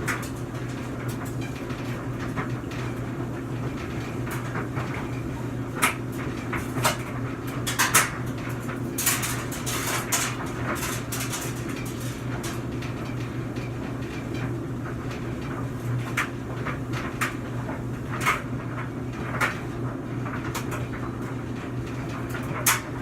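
A laundry machine running with a steady low hum, with irregular knocks and clicks on top of it.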